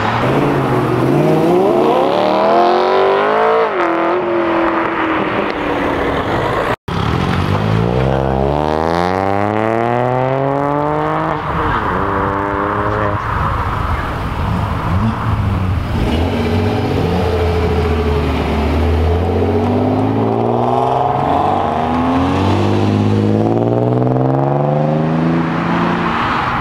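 Car engines accelerating hard one after another, each revving up with a rising pitch through the gears, then easing off as the car goes by. The sound cuts out for an instant about seven seconds in.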